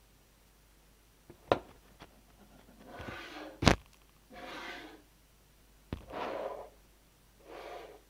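Small magnetic balls clicking sharply as they snap together, a handful of clicks with the loudest a little before halfway. Between the clicks come softer swishing sounds, each about half a second long, repeating roughly every second and a half.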